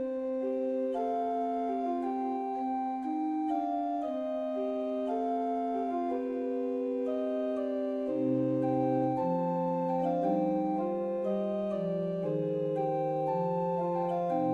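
Slow, calm instrumental music of long held organ-like keyboard chords that change every second or so, with a lower bass line coming in about halfway through.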